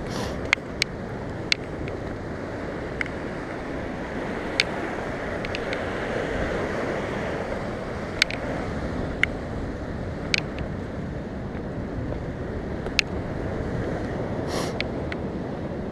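Ocean surf washing against a rocky shore, with wind on the microphone: a steady rushing noise. Scattered sharp clicks come through it irregularly, roughly every second or two.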